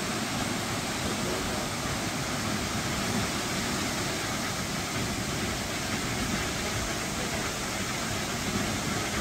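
Steady rushing of a tall waterfall plunging into its pool, an even wash of water noise with no breaks.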